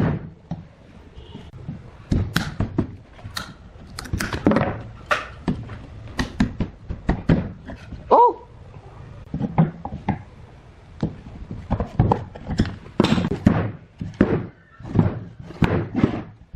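Irregular series of heavy knocks and thunks, many in a row at uneven spacing, with a brief squeak a little past the middle.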